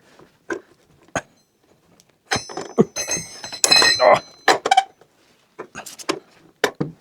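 Metal clinks and knocks from tools and wheel hardware being handled at a car's wheel during a tire change, with a cluster of ringing metallic clinks in the middle.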